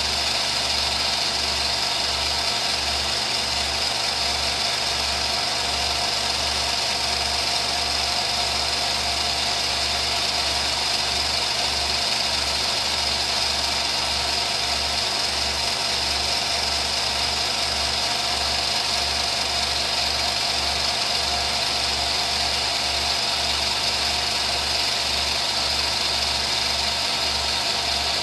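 Film projector running: a steady mechanical whir with a constant high whine and a fast, even low pulsing from the motor and film drive.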